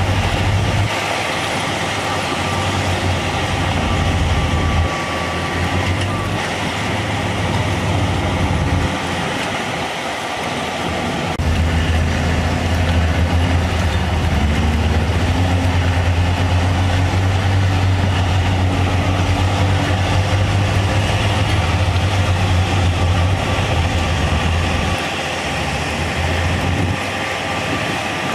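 Heavy diesel earthmoving machinery running, with a deep, steady engine drone. It eases off about nine seconds in and swells again a couple of seconds later.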